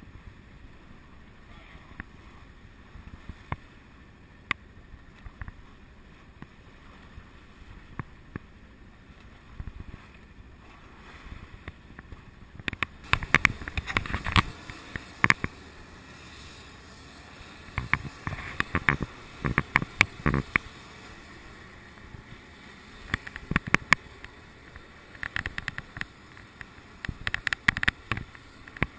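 Water slapping and splashing against a small sailboat's hull as it moves through light chop: a steady quiet wash broken by clusters of sharp splashes, the loudest about halfway through.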